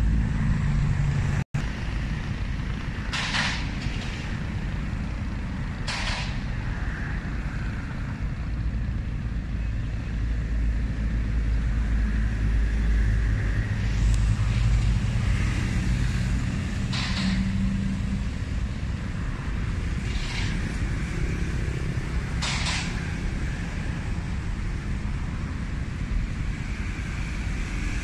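Steady low rumble of road traffic, broken by about six short hissing swishes spread through the stretch.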